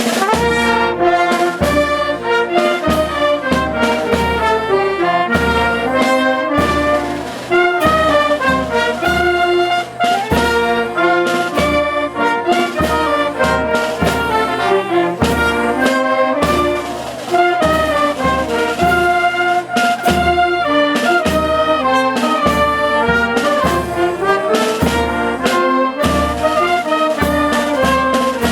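Brass band playing: trumpets and trombones carry the melody over a steady drum beat.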